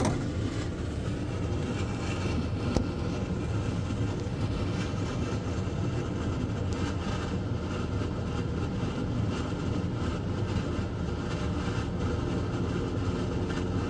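12V under-bunk air conditioner running on turbo: a steady rush of air from its fan blowing hard out of two outlet pipes, over a low hum from the unit. One brief click about three seconds in.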